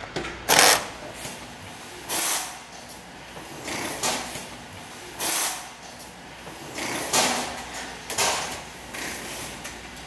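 Assembly-line workshop noise: a run of short hissing, clattering bursts, one every second or two, over a steady background hum.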